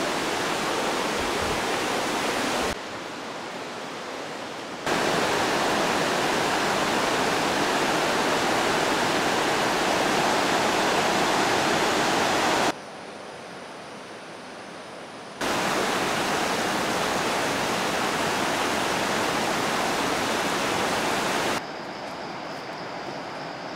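Steady rushing roar of a wide, fast river, broken by sudden drops to a quieter version of the same noise about three seconds in, in the middle, and near the end. In the last quieter stretch a faint, high, steady tone sits over the noise.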